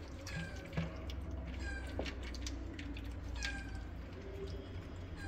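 Young kittens mewing: short, high-pitched cries that fall in pitch, repeated every second or two.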